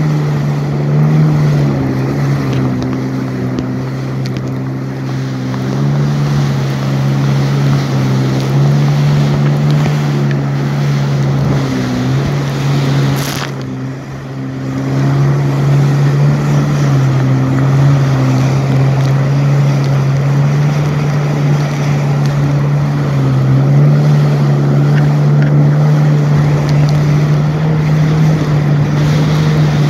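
Jet ski engine running at speed with a steady drone. Wind buffets the microphone and water spray hisses over it. The sound dips briefly about halfway through, then comes back up.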